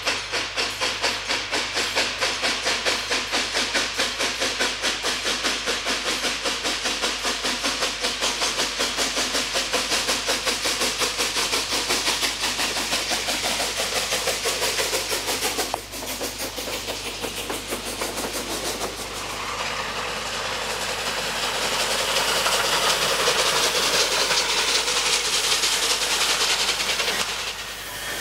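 ČSD class 475 'Mountain' 4-8-2 steam locomotive working a train, its exhaust beating rapidly and evenly. After a break about halfway through, the beats continue under steam hiss that grows louder as it passes close.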